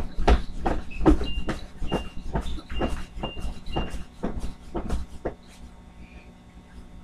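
A rapid, irregular run of thumps from a person flailing on a bed, about two to three a second, with short high squeaks alongside several of them. The thumping dies down after about five seconds.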